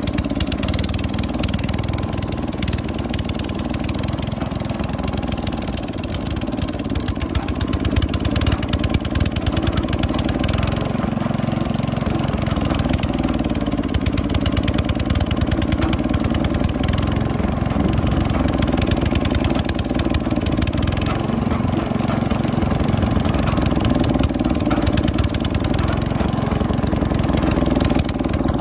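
Wheel Horse lawn tractor's engine running steadily under way, heard from the driver's seat.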